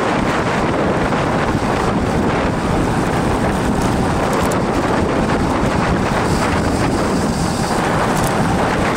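Steady rush of wind buffeting the microphone at speed on a downhill ride.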